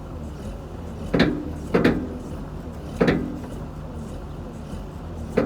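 Four sharp knocks at irregular intervals over a low, steady machine hum.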